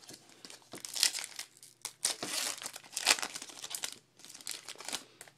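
A trading card pack wrapper crinkling as it is torn open and handled, in several bursts of crackling with short gaps between.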